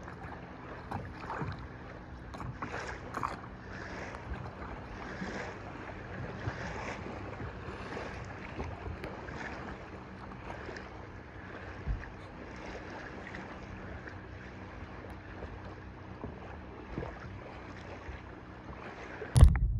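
Soft splashes of a paddle dipping into lake water, about once a second, with water lapping around a stand-up paddleboard and some wind noise.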